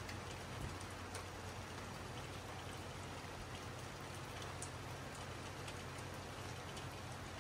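Light rain: a faint, steady hiss with a few scattered drops ticking.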